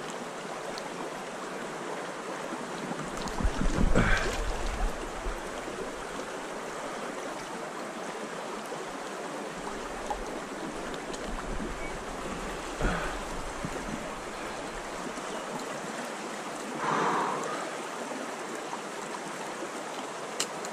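Shallow river water running steadily over a riffle. A brief low rumble swells up about four seconds in, and smaller swells follow later.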